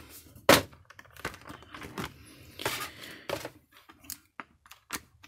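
Cardboard box and clear plastic blister packaging being handled as a model ship is lifted out: one sharp knock about half a second in, then crinkling plastic and scattered clicks.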